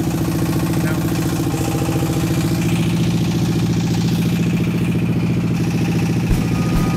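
Inboard diesel engine of a wooden river trawler running steadily at cruising speed, a fast even chugging. Low thumps join in near the end.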